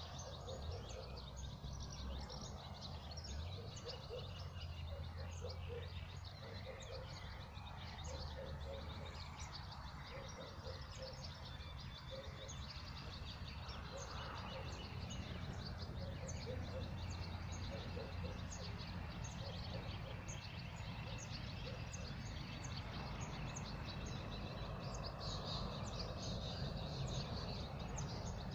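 Wild birds chirping and singing continuously, many short high notes, over a steady low background rumble.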